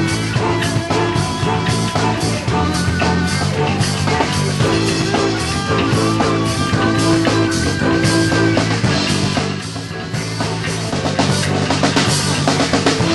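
Rock music played by a band: a drum kit keeping a steady beat under sustained guitar and bass tones.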